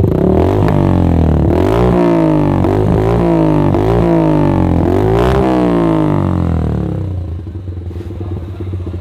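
Motorcycle engine breathing through an Akrapovic aftermarket silencer, revved up in a string of quick throttle blips. It drops back to a steady idle about seven seconds in.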